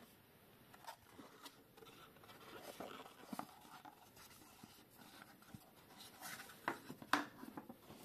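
Faint rustling and light clicks of hands handling the contents of a GoPro HERO 12 Black box: packaging and accessories. A few sharper taps come close together about seven seconds in.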